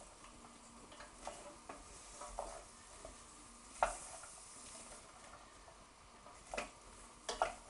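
Wooden spoon stirring chopped vegetables in a stainless steel saucepan as they fry in oil with a low sizzle, the spoon knocking against the pan now and then, sharpest about four seconds in and twice near the end.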